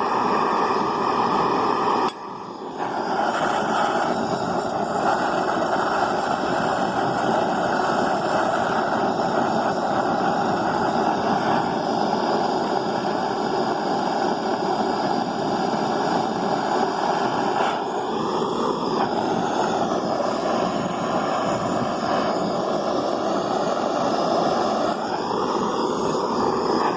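Hand-held butane gas torch burning with a steady rushing hiss as it heats aluminium to melt a Durafix brazing rod; the sound drops briefly about two seconds in, then carries on steadily.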